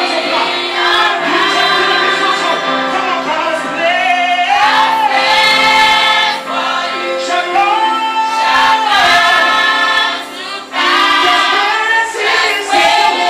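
A church choir of female voices singing a gospel song together, in long held phrases with brief pauses about six and a half and ten and a half seconds in.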